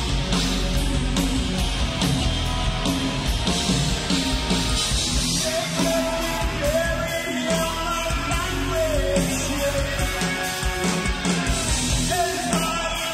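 Loud live heavy metal band playing, with drums pounding steadily under distorted guitars, and a long held note about halfway through.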